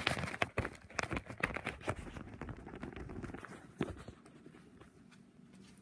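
Handling noise from a phone camera being picked up and positioned: rustling and quick knocks against the microphone, settling to a quieter background after about four seconds.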